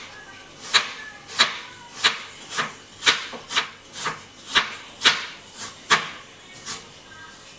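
Knife slicing a green apple thinly on a cutting board: each stroke a crisp cut ending in a knock on the board, about two a second, a dozen in all, the last few fainter.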